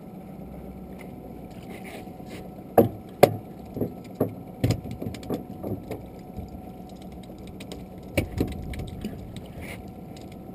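Sharp hollow knocks and clatter in a small open fishing boat, several in quick succession that trail off, then a couple more near the end, over a steady low hum.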